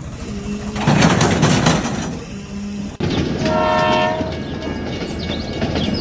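Horn blasts over rumbling mechanical noise: a low horn note shortly after the start and again about two seconds in, then a higher, brighter horn call around three and a half seconds in.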